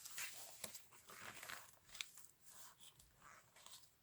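Faint rustling and crinkling of glossy magazine pages being handled and turned, with a few light ticks.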